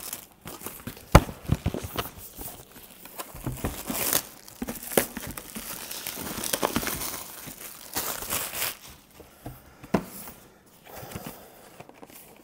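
Plastic shrink-wrap being torn and peeled off a cardboard box, crinkling irregularly, with a few sharp clicks and snaps along the way.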